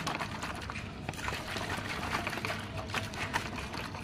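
Water sloshing inside a plastic bottle shaken hard by hand to dissolve Epsom salt in it: a quick, uneven splashing.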